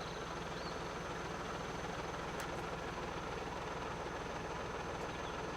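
Machinery running steadily with a low engine hum and a faint high steady tone, unchanging throughout.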